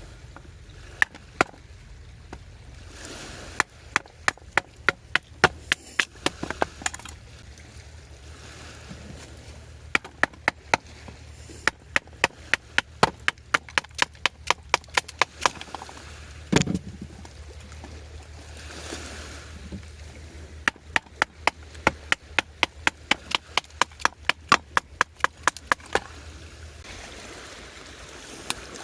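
Wood being chopped with a knife in rapid runs of sharp knocks, about three a second, with pauses between the runs and one heavier thump midway. A low steady rumble runs underneath.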